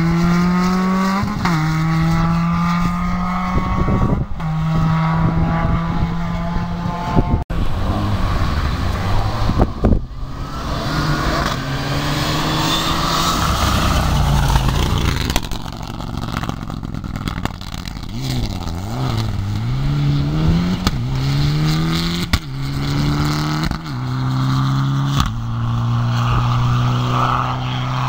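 Rally cars at full throttle on a gravel stage, the engine note climbing and then dropping at each upshift, several gear changes a few seconds apart. Around the middle a Mitsubishi Lancer Evolution passes close with a rush of tyre and gravel noise, and later another car is heard climbing through the gears.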